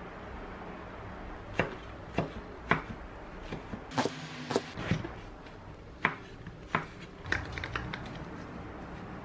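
Kitchen knife slicing an eggplant on a wooden cutting board: a dozen or so sharp, irregularly spaced knocks of the blade on the board, with a short burst of scraping and handling about four seconds in.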